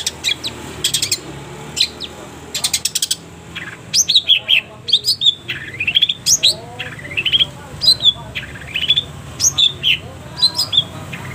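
Long-tailed shrike (cendet) singing. It opens with quick rattling chatters in short bursts, then gives a busy run of sharp chirps and downslurred whistles, over a faint steady low hum.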